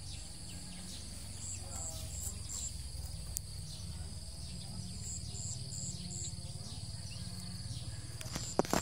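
Outdoor ambience of insects buzzing steadily, with short high chirps in small quick runs, over a low rumble. A few sharp clicks sound near the end.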